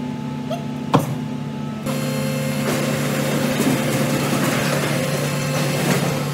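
Tyre-processing machine motor humming steadily, with a sharp click about a second in, then a louder, rougher working noise from about two seconds in.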